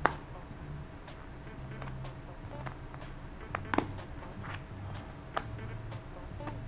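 Large-format cardboard jigsaw puzzle pieces being picked up and pressed into place on a table: scattered light clicks and taps, the sharpest at the start, just before four seconds and just past five seconds.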